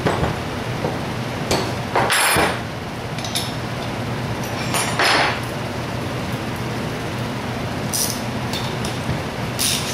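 Metal engine parts and hand tools clinking and rattling on a workbench as a Zenoah G270RC two-stroke engine is assembled by hand, in short separate knocks with longer rattles about two and five seconds in and a run of clinks near the end, over a steady background hum.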